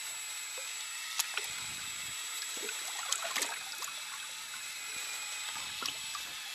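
Water lapping and trickling around a small inflatable boat, a steady wash, with a few sharp clicks and knocks about a second in, around three seconds and near six seconds.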